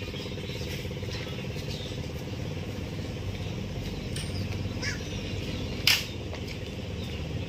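An engine running steadily with a low hum, and one sharp click about six seconds in.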